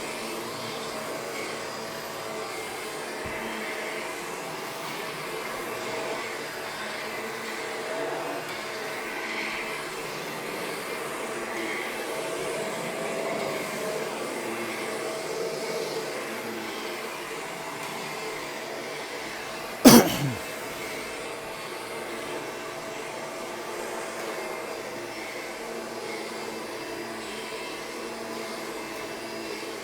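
Vacuum cleaner running steadily as it is pushed over worn polyester carpet. About two-thirds of the way through there is one sharp, loud knock with a brief ringing tail that drops in pitch.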